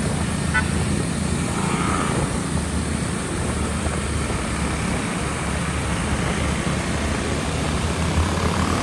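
Motorcycle engine running steadily at cruising speed, with wind and road noise rushing over the microphone.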